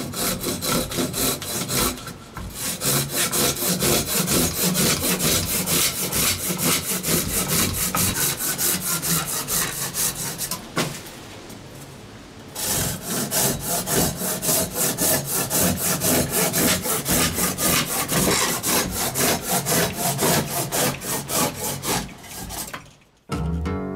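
Hand pruning saw cutting through a block of semi-dry apple wood in quick, even back-and-forth strokes. The sawing pauses briefly twice, once shortly after the start and once near the middle, and stops just before the end.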